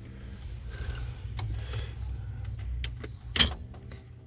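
Small metal clicks and rattles from steering-column ignition lock parts being worked by hand, with one sharper click about three and a half seconds in, over a steady low hum.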